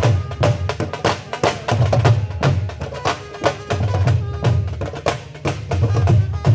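Dhol drumming at a fast pace: quick, sharp stick strokes with deep bass beats falling among them, and some pitched tones alongside.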